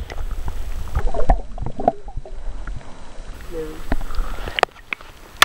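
Stream water heard through a submerged camera: a muffled low rumble and gurgle, with scattered knocks and clicks.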